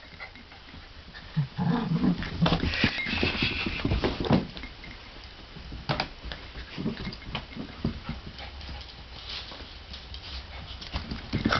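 Two poodles playing: bursts of dog vocalizing, loudest about one and a half to three seconds in, among scattered knocks and scuffling.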